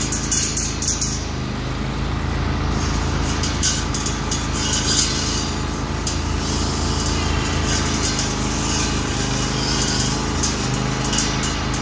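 Zero-turn riding mower with a front-mounted carbide-tipped saw-blade brush cutter running steadily while cutting into brush, with repeated bursts of high hissing noise as the blade hits stems and branches.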